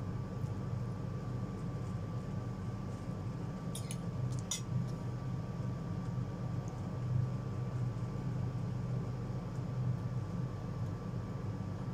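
Steady low room hum with two short clinks about four seconds in.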